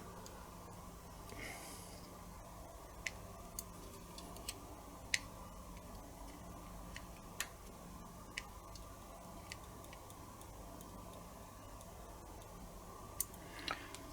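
Faint, irregular clicks and taps of small parts and tools being handled, about a dozen over several seconds, while a small motor pulley is pressed onto its shaft, over a low steady hum.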